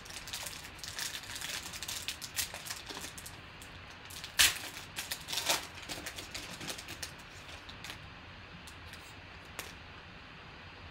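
Foil wrapper of a football trading-card pack being crinkled and torn open by hand: a dense run of sharp crackles, loudest about four and a half seconds in, thinning out to a few faint rustles near the end.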